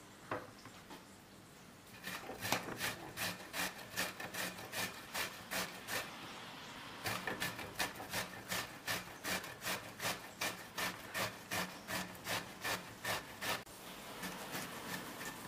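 Zucchini being grated on a stainless-steel box grater standing on a wooden cutting board: rhythmic rasping strokes, about three a second, with a short break about halfway through and softer near the end. A light knock near the start as the grater is set down on the board.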